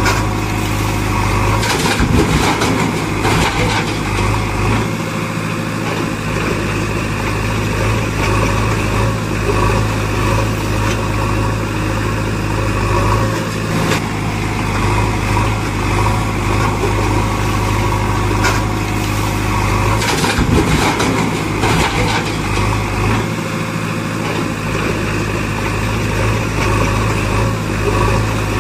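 Heavy diesel engine running steadily at idle, a looped sound-effect track whose same stretch repeats about every 18 seconds, with a few short clanks.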